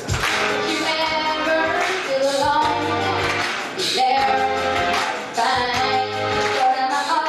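A teenage girl singing a pop song into a microphone, with musical accompaniment behind her voice.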